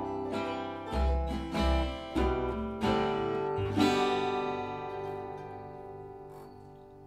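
Acoustic string band of acoustic guitar, ukulele, mandolin and upright bass playing the closing bars of a song. A few strummed chords over bass notes lead to a final chord about four seconds in, which rings and slowly fades away.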